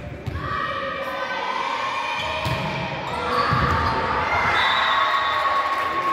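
Girls' volleyball rally: several young players' voices shouting and calling out over one another, getting louder about three seconds in. Dull thumps of the ball and of feet on the hall's court floor run underneath.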